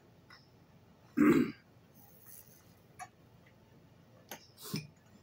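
Eating sounds at a table: a short, loud mouth or throat noise about a second in, then a few light clicks of forks against dishes and another brief mouth noise near the end.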